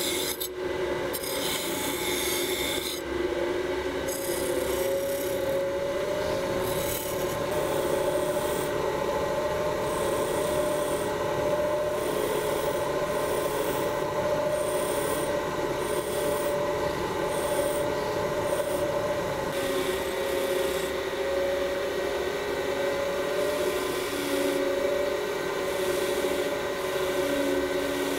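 Bench grinder running steadily with a wire wheel, as the parts of an old Stanley Bedrock No. 608 hand plane are held against it to clean them: first the steel plane iron, with harsher scratching in the first three seconds, then a small brass adjusting nut. The motor's steady hum runs under the scratching.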